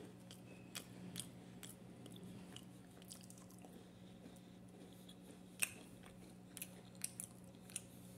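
A person chewing a soft cream-filled sandwich biscuit, with scattered small, sharp crunches and mouth clicks; the loudest comes about two-thirds of the way through. A steady low hum sits underneath.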